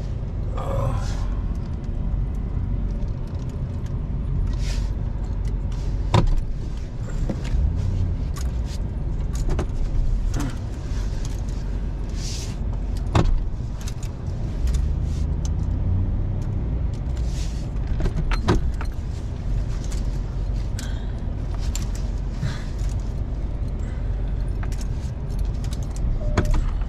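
A vehicle's engine running low and steady as it moves slowly along a rough dirt trail, with scattered clicks and knocks, a few of them sharp.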